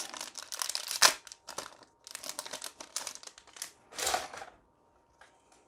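Foil wrapper of a Magic: The Gathering set booster pack crinkling and tearing as it is opened, a run of rustling noises that stops about four and a half seconds in.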